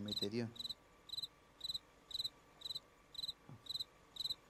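Crickets chirping in an even rhythm, about two short trills a second: the stock crickets effect laid over an awkward pause after a fumbled line.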